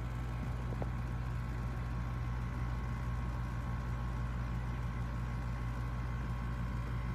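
Electric food chopper's motor running steadily with a low, even hum.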